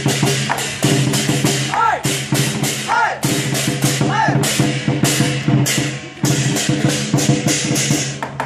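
Chinese lion dance percussion: drum and cymbals struck in a rapid, dense rhythm over a steady ringing tone. Three short calls that rise and fall in pitch come through about two, three and four seconds in.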